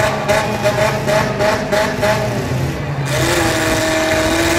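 Demolition derby cars' engines running and revving hard, several at once, growing noisier about three seconds in.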